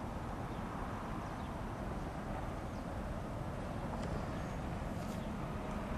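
Steady outdoor background rumble and hiss, with a few faint high chirps about four and five seconds in.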